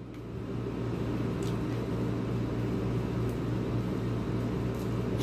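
Steady low machine hum of a running appliance, with a few faint clicks and a sharper click near the end.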